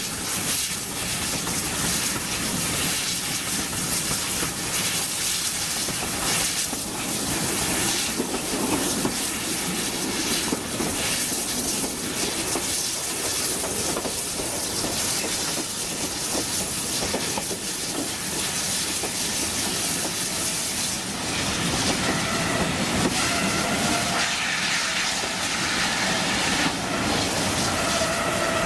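Steam-hauled heritage train heard from an open carriage window: steady running noise of wheels on the rails with steam hiss. In the last several seconds a thin, steady squeal joins in as the train draws into a station.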